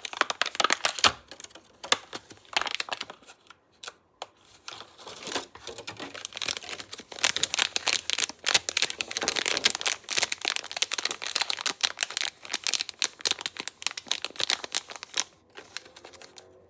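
Plastic toy packaging crinkling and crackling as it is unwrapped and torn open by hand, in short spells at first, then steadily for about ten seconds, easing off near the end.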